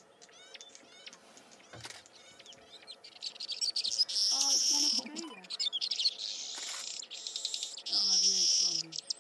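Wild birds calling: quick repeated chirps at first, then loud harsh buzzing calls starting about three seconds in and again about eight seconds in.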